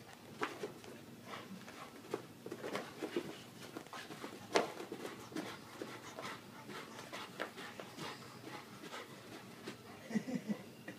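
A Rottweiler's paws thumping and scuffling on carpet as she spins after a laser dot: irregular footfalls, with a sharper knock about four and a half seconds in.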